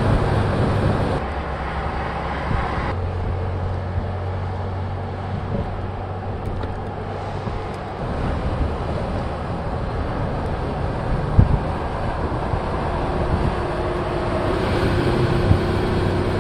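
2019 Mercedes-Benz G550 with a twin-turbo V8 driving on pavement: a steady low engine hum mixed with tyre and road noise. The sound shifts abruptly a few times, and there is a single short knock about two-thirds of the way through.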